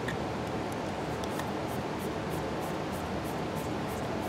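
Small metal-on-metal ticks and clicks as a screwdriver runs the tiny screws down into the aluminium cover of a chainsaw's diaphragm carburetor, with one sharper click at the start. A steady hiss lies under them.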